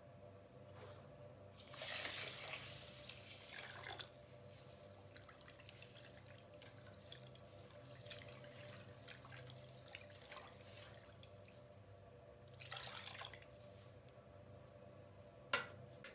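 Water poured from a copper jug into a metal pot, a longer pour about two seconds in and a shorter one near the end. A single sharp knock just before the end.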